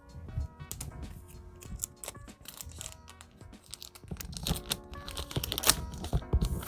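Yu-Gi-Oh trading cards and their booster-pack wrapper being handled: quick clicks and crinkles, busiest in the second half, over steady background music.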